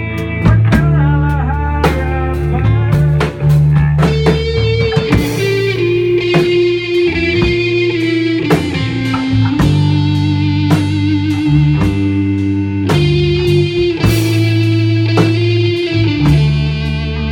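Rock band playing live in a rehearsal room: electric bass holding deep notes, a drum kit keeping time with cymbal hits, and an electric guitar carrying a melody of long-held notes with a few bends.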